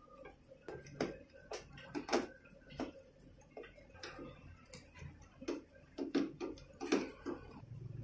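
Screwdriver turning out a screw in the steel top rail of a front-loading washing machine's cabinet: faint, irregular metal clicks and ticks, about one or two a second.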